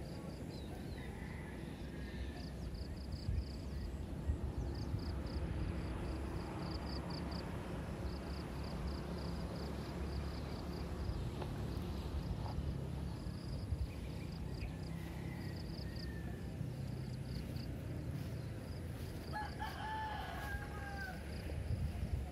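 A rooster crows once near the end, a call of about a second and a half, with fainter calls earlier. A rapid high chirping pulses in the background over a steady low rumble.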